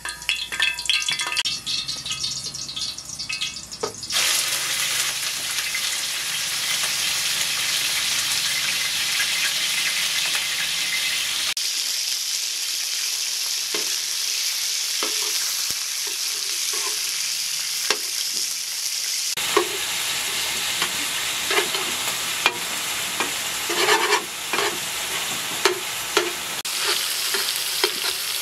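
Minced meat frying in hot fat in a large iron pan: a loud, steady sizzle sets in about four seconds in. In the second half, a metal spatula scrapes and taps on the pan again and again as the meat is stirred and broken up.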